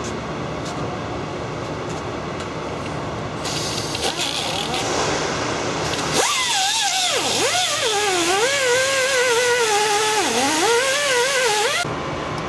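Angle grinder working on the steel rotor drum of a forestry mulcher, cleaning a spot where a balancing correction weight is to be welded on. A harsh grinding hiss builds from about three seconds in; from about six seconds the grinder's whine comes in, its pitch dipping and wavering as it is pressed on and eased off the metal, and it stops shortly before the end.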